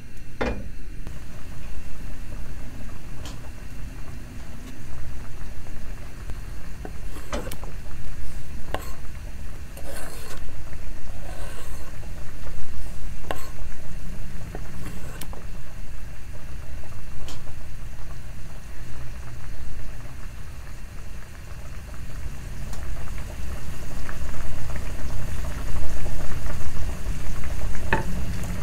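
Cooking at a gas hob: a pot set down on the burner grate, then scattered knocks and clatter as chopped tomatoes are scraped off a cutting board into the pot, over the gas burner's steady low rumble.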